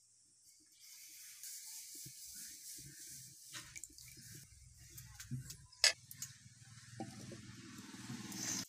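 Thin rice batter pouring from a steel ladle onto a hot clay pan and hissing, with one sharp knock about six seconds in.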